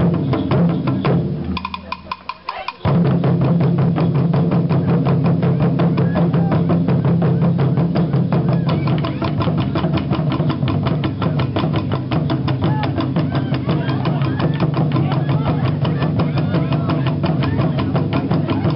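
Taiko drum ensemble playing: a dense, driving stream of strikes on barrel drums. There is a brief lull about two seconds in, then the full group comes back in loudly.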